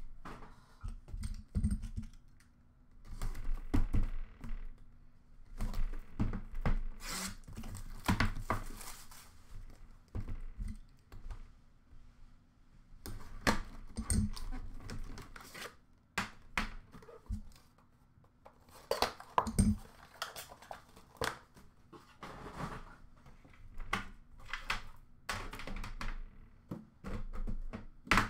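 Hands unpacking a box of hockey trading cards: tearing and crinkling of the wrapping, with scattered clicks and knocks as the cardboard box and metal tin are handled and set down.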